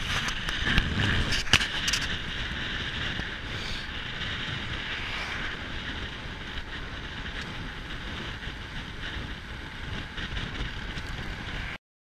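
Wind rushing over the microphone of a camera on a moving road bike, a steady noisy rush, with a few sharp knocks in the first two seconds; the sound cuts off abruptly near the end.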